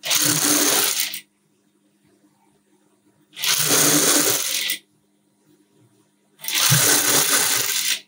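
Sewing machine stitching a zipper onto fabric in three short runs of about a second each, stopping between runs, over a low steady hum.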